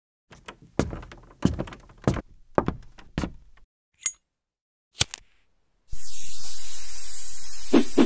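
A run of heavy knocks, about five in three seconds, then two sharp clicks a second apart. A steady high hiss starts about six seconds in, with a couple more knocks near the end.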